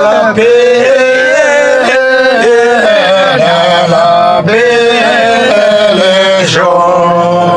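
Men singing a Hyolmo (Yolmo) folk song together, in long held notes with slow bends in pitch.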